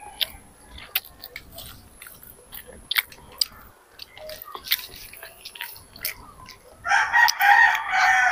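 Close mouth clicks and smacks of a child chewing a soft bread roll. Near the end a rooster crows loudly, drowning out the chewing.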